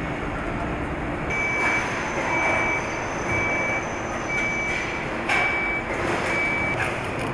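Steady hum of car-plant machinery with an electronic warning beeper sounding six times, about once a second, starting about a second and a half in. A single sharp knock comes partway through.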